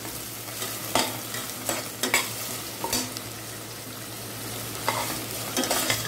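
Sliced onions, capsicum and beans sautéing in oil in a stainless steel pot: a steady sizzle, with the spatula scraping and knocking against the pot about six times as the mix is stirred.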